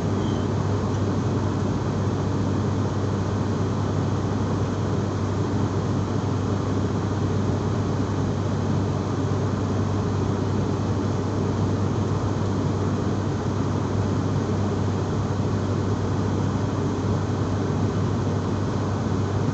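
Steady drone inside an airliner's cabin: engine and airflow noise with a low hum that doesn't change.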